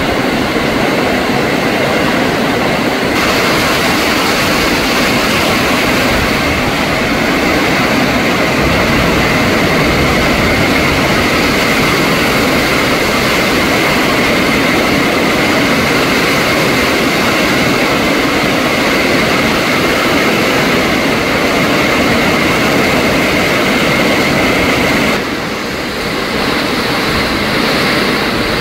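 Storm wind gusting through trees with heavy rain falling on the foliage: a loud, steady rush that eases briefly near the end.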